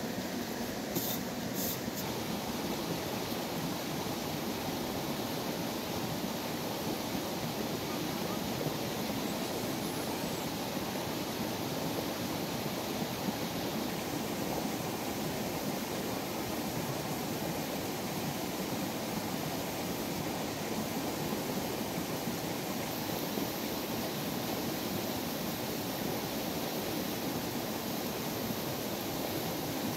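Steady rushing of a shallow stream flowing over rocks, with a couple of faint clicks about one and two seconds in.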